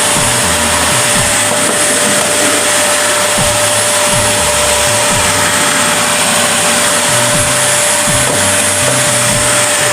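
Vacuum cleaner running steadily, loud, with a high-pitched whine over its airflow rush and a steady lower hum. Scattered low bumps come through as it is worked over the floor.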